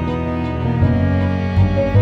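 Background music of sustained, held notes over a low bass line, changing note every so often.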